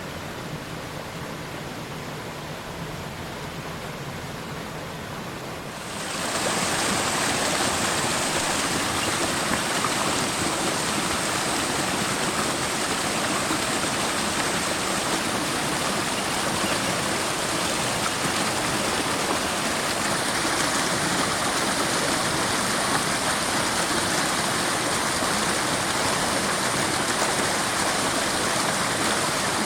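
Steady rushing water of a stream, which becomes louder about six seconds in and stays steady, with a faint high tone.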